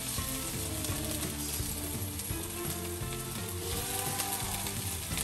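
Chicken pieces frying in oil with sautéed onions and garlic in a frying pan, a steady sizzle, with background music playing over it.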